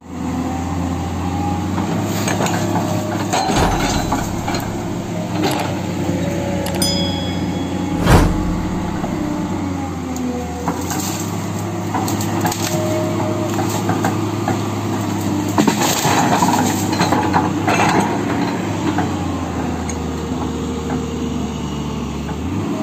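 Tata Hitachi tracked hydraulic excavator's diesel engine running under load, with a hydraulic whine that rises and falls in pitch as the boom and arm move. The bucket digs into soil and pushes through shrubs, with cracking and snapping of branches and several knocks, the loudest about eight seconds in.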